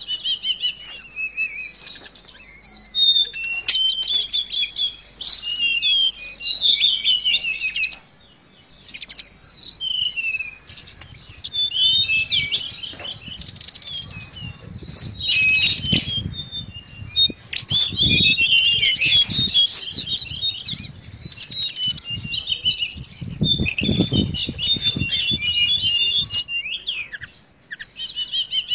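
A caged mangrove blue flycatcher (tledekan laut) sings a rapid, varied twittering song of high chirps, trills and short slurred notes, in phrases with brief pauses. Low thumps, like wing flaps against the cage, come a few times in the second half.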